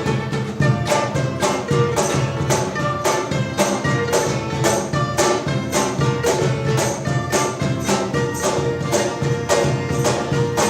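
Live band playing an instrumental passage of a folk-rock pirate song, with a steady beat of percussion strokes, several times a second, under sustained melody notes.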